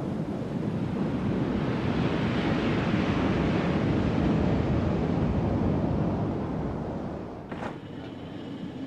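Surf washing up a sandy beach: a steady rush of breaking waves that builds and then fades away near the end, with one short tick shortly before it dies down.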